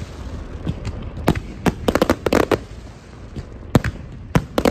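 Aerial fireworks display: an irregular run of sharp bangs and crackles from bursting shells, coming in quick clusters.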